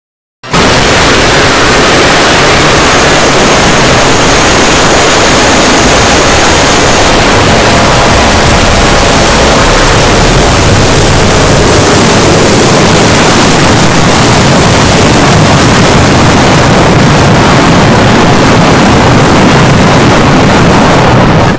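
Extremely loud, heavily distorted jumpscare sound effect: a dense, harsh wall of clipped noise that bursts in suddenly about half a second in, holds at full blast, and cuts off abruptly at the end.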